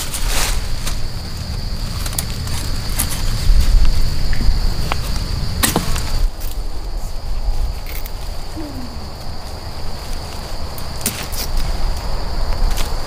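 A steady high-pitched insect trill, with a low rumble beneath it and a few sharp knocks, the sharpest about halfway through.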